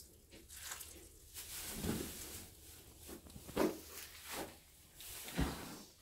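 A Shetland pony mare in labour getting down into straw bedding: straw rustling and a few dull thumps as her body goes down and settles, the last low thump near the end.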